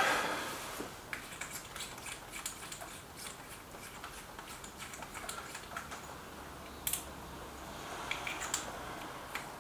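Faint, irregular clicks and small knocks of an air rifle being handled and reloaded between shots, with a sharper click about seven seconds in.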